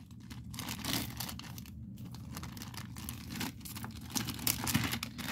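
Small clear plastic bag crinkling as it is handled, in irregular faint crackles.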